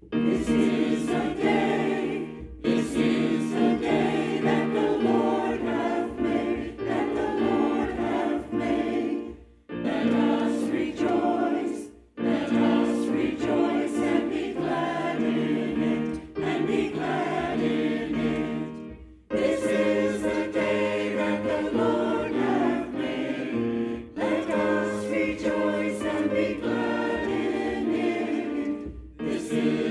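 A church choir singing in sustained phrases, with brief breaths between phrases every few seconds.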